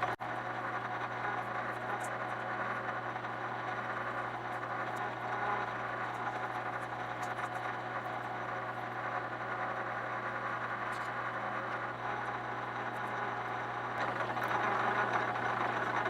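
Metal lathe running steadily with a low hum while a parting tool is fed slowly through a turned metal knob, cutting it off.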